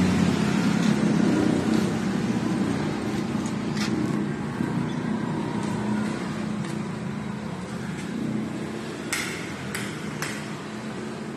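A motor vehicle engine running steadily, a low hum that fades slowly. Near the end come three sharp clicks in quick succession.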